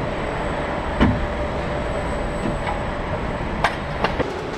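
Workshop ambience in a helicopter assembly hangar: a steady mechanical rumble with a sharp knock about a second in and a few lighter metallic clicks near the end.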